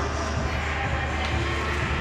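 Fairground music playing over a steady low hum.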